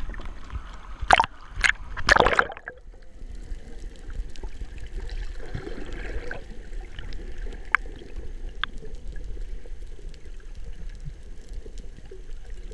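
Sea water sloshing and splashing around an action camera at the surface, with three loud splashes in the first two and a half seconds. Then the camera goes under and the sound turns muffled: a low underwater rumble with a few faint clicks.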